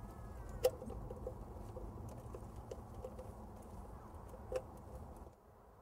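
Two sharp clicks of parts being fitted into the air conditioner's sheet-metal control box while a relay is mounted, the louder one about a second in and another near the end. Faint bird calls and a low outdoor rumble underneath.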